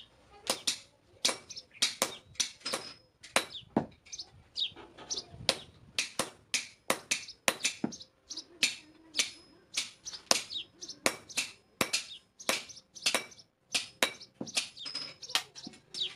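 Hand hammer blows on metal at the anvil, forging the pruner blade: a run of short, sharp strikes at about three a second, unevenly spaced, with a faint ring after them.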